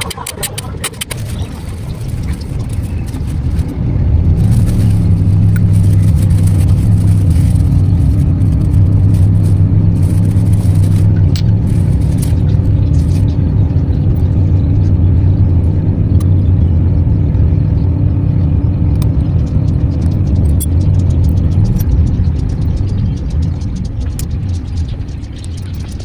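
An engine running at a steady speed close by, a low, even hum that builds up over the first few seconds and dies away near the end. A few light clicks of small parts being handled sound over it.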